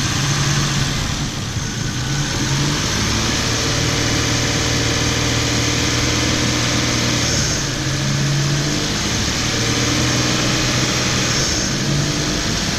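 Isuzu VehiCROSS's DOHC 24-valve V6 running at slightly raised revs, held up by hand at the throttle while Sea Foam spray is fed into the intake of the fully warmed engine to decarbonize it. The revs rise and fall a little, with a steady hiss over the engine.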